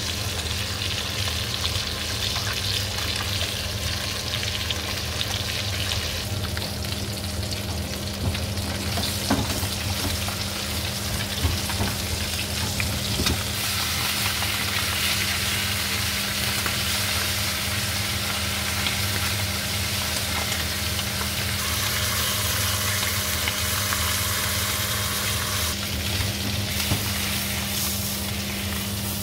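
A whole brill sizzling as it pan-fries in hot fat in a frying pan, the sizzle stepping louder and softer a few times. A few light clicks of a spatula against the pan, over a steady low hum.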